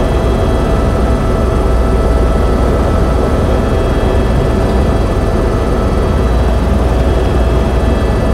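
Helicopter cabin noise in steady cruising flight: a loud, unbroken low rotor drone with a constant turbine whine on top, heard from inside the cabin.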